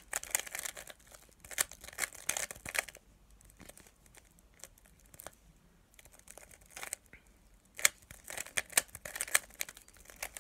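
Plastic 3x3 puzzle cube being turned by hand: quick clicking and clacking of its layers as they rotate, in flurries at the start and near the end with a sparser stretch in the middle.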